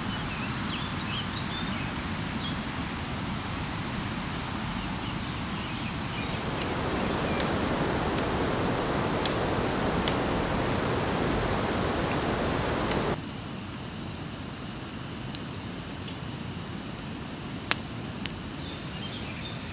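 Steady outdoor hiss with a few faint bird chirps, then a campfire burning with scattered sharp pops, the clearest three in the last few seconds.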